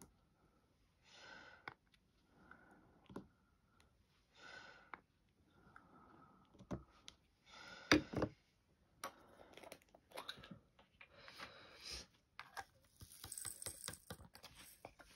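Small clicks and taps of a diamond-painting pen and resin drills on the canvas, with soft breathing between. A louder knock about eight seconds in, then a run of light clicking and rustling.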